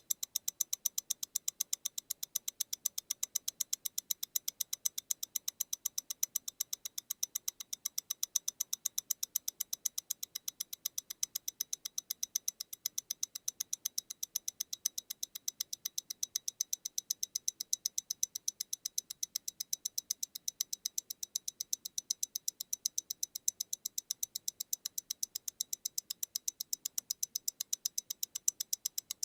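Mechanical movement of a MEMORIGIN Stellar tourbillon wristwatch ticking, close-miked, at 28,800 beats an hour: a fast, even run of light, high-pitched ticks, about eight a second.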